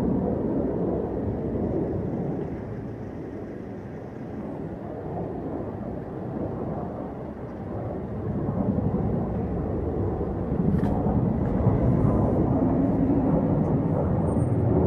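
F-16 fighter jet flying low overhead: a deep jet-engine rumble that fades over the first few seconds and builds again from about eight seconds in.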